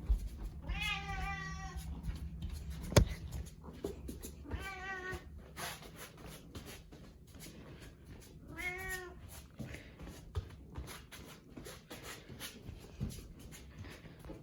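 A domestic cat meowing three times: a long call about a second in, a shorter one around four and a half seconds, and one near nine seconds whose pitch rises and falls. A sharp knock comes about three seconds in, and light ticks and taps are scattered between the calls.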